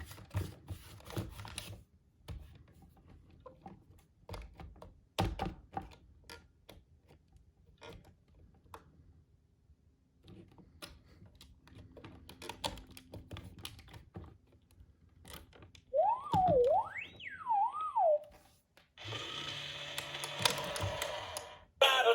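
Scattered clicks and knocks from a Hasbro Room Tech Beingz alarm clock toy being handled and its buttons pressed. Near the end it gives a warbling electronic whistle that glides up and down, then a short burst of electronic noise.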